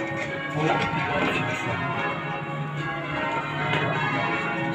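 A ring of ten church bells, old Simpson-tuned bells with a 28 cwt tenor in C#, rung in changes. The strikes follow one another in a steady stream, and each bell rings on long after it is struck, so the tones overlap.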